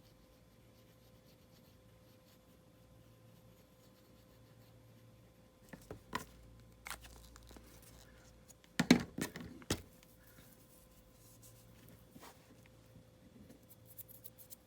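Hands handling small craft materials: quiet at first, then a scattering of light clicks, taps and rustles of paper and trim, loudest in a short cluster about nine seconds in.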